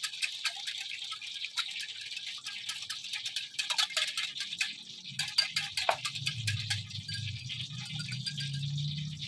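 Wire balloon whisk beating a thin flour-and-water batter in a glass bowl: a fast, irregular clicking rattle of the wires against the glass. A low hum joins about halfway through.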